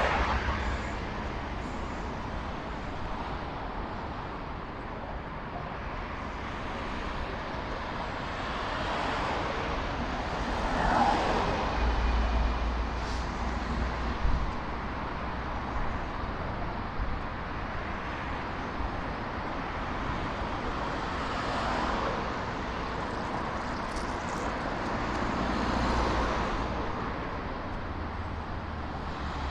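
Busy city road traffic: a steady wash of car and engine noise, with vehicles swelling past every few seconds and a heavier low engine rumble about twelve seconds in.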